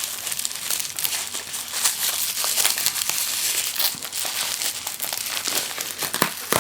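Packaging crinkling and rustling as a package is unwrapped by hand, with many small crackles and clicks.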